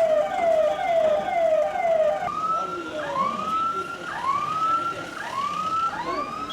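Electronic sirens of emergency vehicles: a fast falling yelp repeating about four times a second, changing abruptly about two seconds in to slower rising whoops, with a second siren overlapping them.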